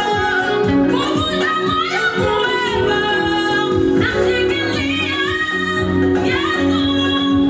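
Youth choir singing a gospel song in Swahili, with voices over instrumental accompaniment and a steady beat.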